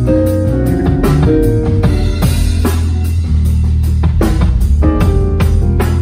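Electric bass, a Fender Precision Bass, playing a groove together with a drum kit keeping a steady beat.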